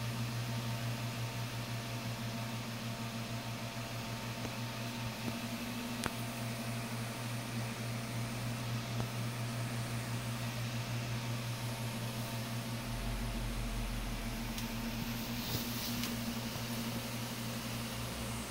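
Electric fan running steadily in a grow tent: a constant low motor hum with a hiss of moving air. A deeper rumble joins for about three seconds a little past the middle.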